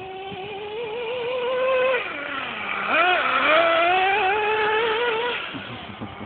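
Traxxas Nitro Rustler's small two-stroke nitro engine running at high revs as the RC truck drives. Its high-pitched whine climbs, drops low about two seconds in as the revs fall, then shoots back up and runs high before fading near the end.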